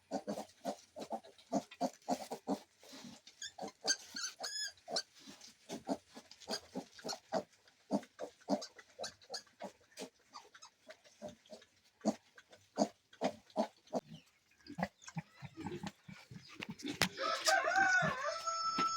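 Pigs grunting, short grunts several a second in a steady stream, with a brief high squeal about four seconds in. Near the end a longer pitched animal call rises over the grunting.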